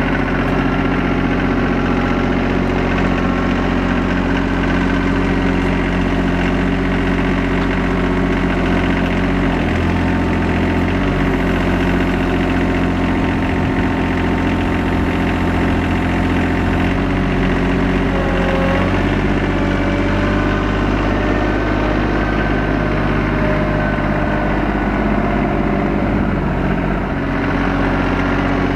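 Diesel engine of an RK24 subcompact tractor running steadily, its note shifting a few times as the backhoe arm is worked.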